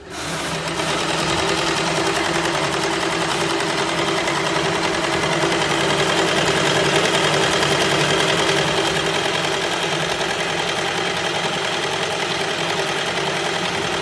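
DT2200 carpet fringing sewing machine starting up abruptly and running steadily at sewing speed: a fast, even mechanical ticking of the needle stroke.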